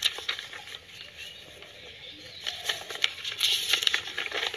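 Sheets of paper rustling and crinkling as they are handled and turned over, in irregular short bursts that are busier in the second half.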